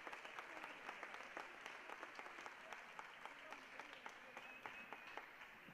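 Faint audience applause: many hands clapping at once, tailing off slightly toward the end.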